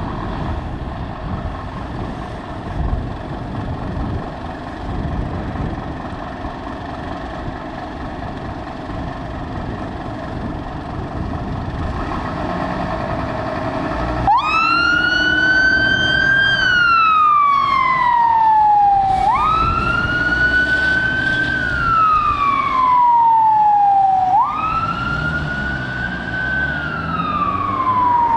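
Vehicle engine and road noise building, then about halfway through a fire engine's siren starts, sounding a wail: each cycle jumps up, climbs slowly to its peak and slides down again, about every five seconds, three times. The siren is the loudest sound.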